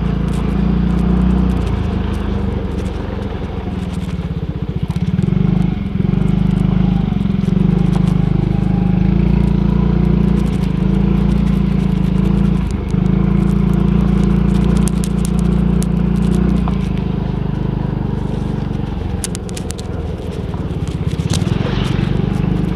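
Small motorcycle engine running steadily as it rides along, its pitch shifting a few times with the throttle. Scattered clicks and rattles come in, mostly near the end.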